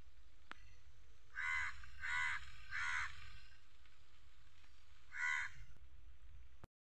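A crow cawing: three harsh caws in quick succession, then a fourth a couple of seconds later, over a faint low rumble.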